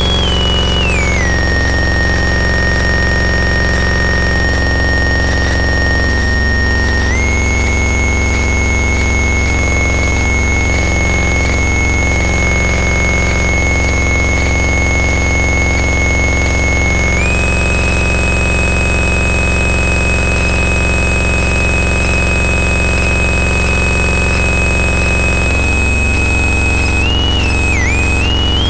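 Harsh noise wall: a dense, unbroken wall of distorted noise with a heavy low hum beneath. Over it a piercing, whistling tone holds steady, drops in pitch about a second in, steps up twice, around seven and seventeen seconds in, and wavers back up near the end.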